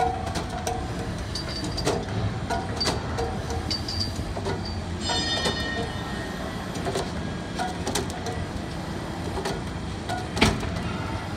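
Locomotive diesel engine being barred over by a barring tool: a steady low mechanical rumble with scattered metallic clicks and knocks. A brief high squeal comes about five seconds in, and a sharp knock near the end.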